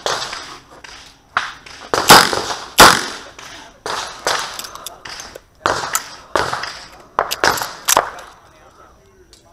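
Chiappa Rhino .38 Special revolver firing a string of unevenly spaced shots during a stage run. The two loudest come close together about two seconds in.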